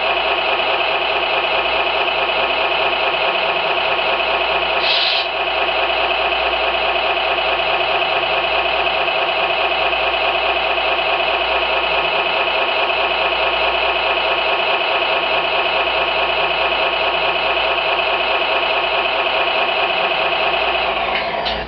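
Simulated engine idle from an SMX sound card for RC models, played through its small speaker: a steady, unchanging engine note with many overtones. A brief high-pitched blip comes about five seconds in.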